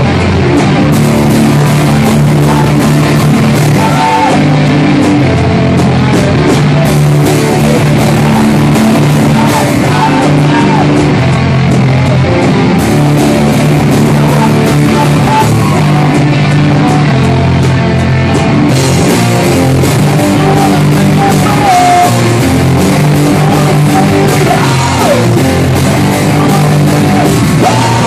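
A rock band playing loud, punk-style: guitar with yelled singing over it, at an even loudness throughout.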